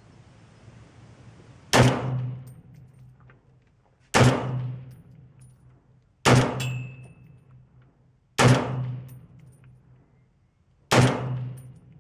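Five shots from a Crusader Weaponry Broadsword, a custom .308 AR-10-type carbine with a 16-inch barrel and a Battle Comp muzzle brake, fired about two seconds apart. Each sharp report carries a lot of muzzle blast from the brake and trails off in a short echo.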